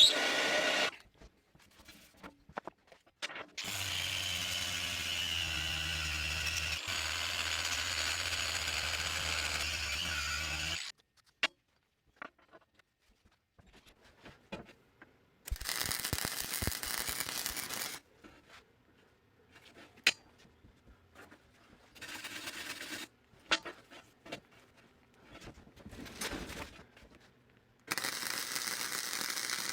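A power tool runs steadily for about seven seconds. Then come three short bursts of welding on a zinc-coated steel bolt, each lasting one to a few seconds, with quiet gaps between.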